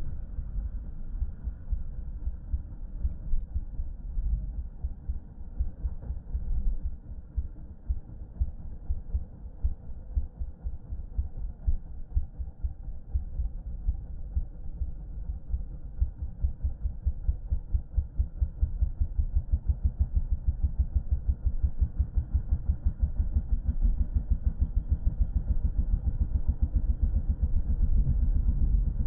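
Yamaha dirt bike engine running at low speed while being ridden, heard as a low, regular thumping that becomes steadier and louder about halfway through.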